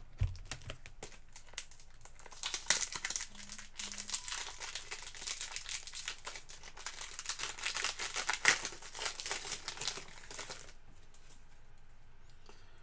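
Trading card pack wrapper being handled and torn open in the hands. A few light clicks give way, about two seconds in, to dense crinkling and crackling that stops near the end.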